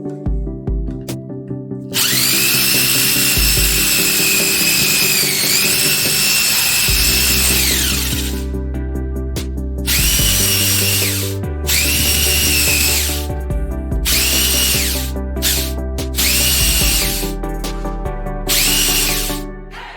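Electric power tool motor whining: one long run of about six seconds with a brief dip in pitch midway, then a string of short runs of one to two seconds each, every run spinning up and winding down. Background music throughout.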